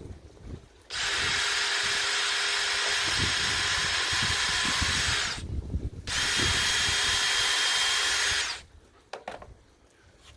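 Power drill running in two steady bursts, about four seconds and then about two and a half seconds, with a short pause between.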